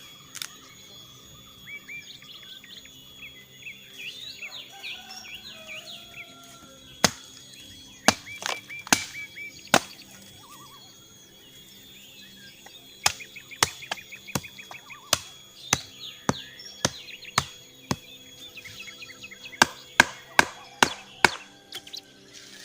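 Sharp strikes of a blade or tool on wood, as in chopping. There are a few scattered strikes, then a steady run of about two a second in the second half. Birds chirp throughout over a steady high insect tone.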